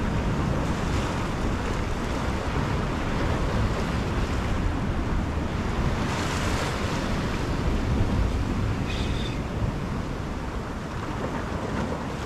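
Sea swell washing and surging against shoreline rocks, with wind on the microphone; the wash swells a little louder about six seconds in.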